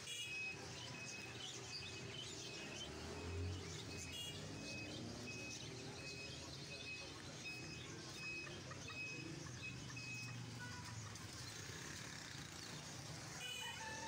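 Caged birds chirping, many short high chirps repeating over the hum of a market street.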